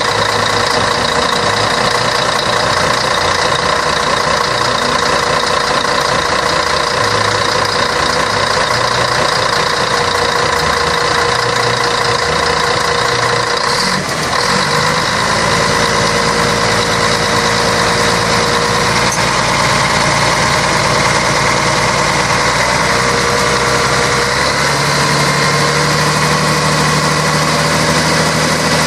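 Scania K113 bus's 11-litre six-cylinder diesel engine running steadily with a whine. Its note shifts about halfway through and again near the end.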